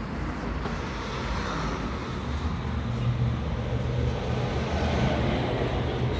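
A steady low mechanical hum under a wash of noise, growing slightly stronger about three seconds in.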